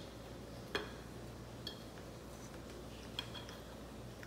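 A few faint clinks of a knife and fork against a plate as a loaf of banana bread is cut, spread out through the stretch, over a faint steady low hum.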